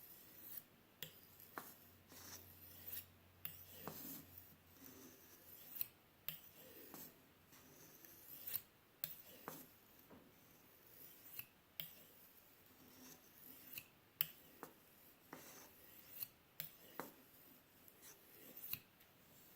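Spyderco Tenacious pocket knife blade stroked by hand across a sharpening stone, faint short rasping strokes at an uneven pace, a few every couple of seconds with brief pauses, honing the edge toward a razor finish.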